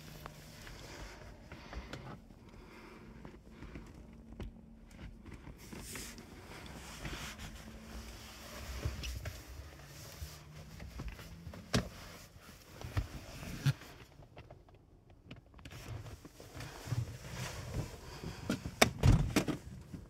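Handling noise and scattered knocks from a handheld camera moving through a small aircraft cabin. A faint steady hum runs through the first half, and a cluster of louder thumps comes near the end.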